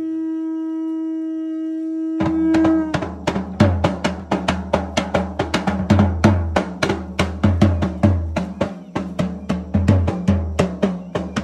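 A held sung note ends about two seconds in, and fast, dense drumming on a double-headed barrel drum starts, rapid strokes with deep thuds, running on as ritual drum accompaniment.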